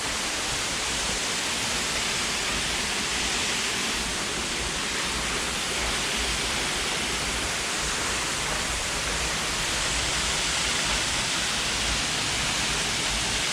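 Waterfall: water falling onto rock, a steady, even rushing noise with a low rumble beneath it.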